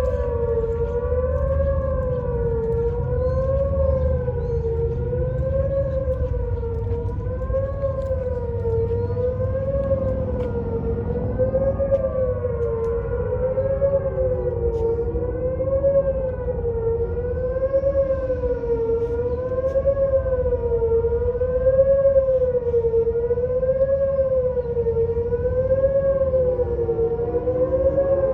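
Outdoor tornado warning siren sounding a wavering wail, its pitch rising and falling about every one and a half seconds, during its scheduled monthly test. Behind it, a second siren's tone slides down in pitch several times.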